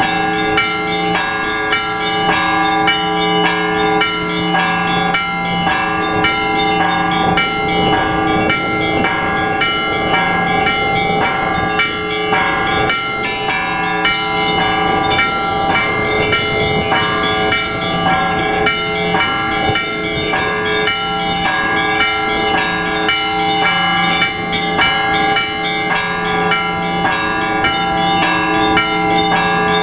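Orthodox church bells ringing in a continuous peal: several bells of different pitches struck rapidly and without pause, with a deep bell sounding beneath the smaller ones.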